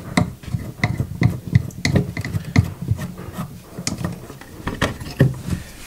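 A small hand wrench knocking and clicking against the coupling nut of a toilet's water supply line as the nut is worked loose, in irregular knocks several times a second.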